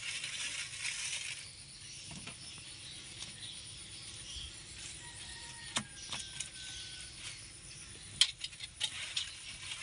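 A knife scraping the hard, thick scales off a red arowana: a rasping scratch for the first second or so, then a quieter stretch with scattered sharp clicks and scrapes as the blade catches on scales, louder toward the end.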